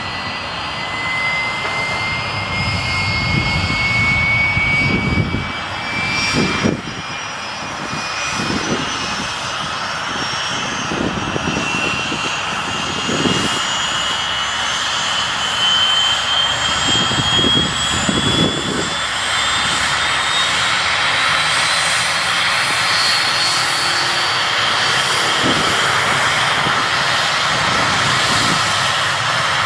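Airbus Super Puma helicopter's twin turboshaft engines spooling up on the ground with the rotors turning: a steady turbine whine that rises smoothly in pitch, over the whoosh of the rotor. Irregular low thumps come and go through the first two-thirds.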